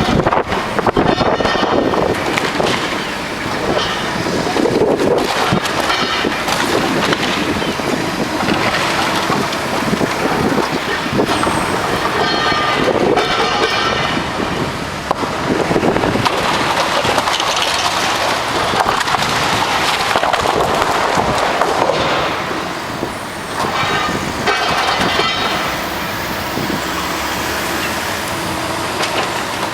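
Heavy demolition machinery working steadily, with loud high-pitched metallic squeals three times, about a second in, near the middle and near the end.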